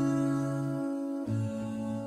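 Background instrumental music: held chords that change to a new chord just past the middle.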